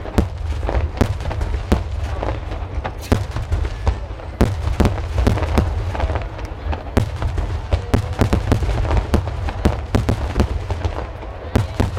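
Water starmine fireworks display: a rapid, unbroken run of shell bursts, several sharp reports a second over a continuous deep rumble.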